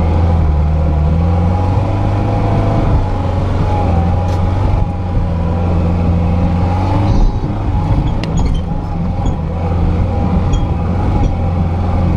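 Lada Niva 2121's four-cylinder engine running steadily at low revs while the car drives off-road, with a few light clicks and rattles in the second half.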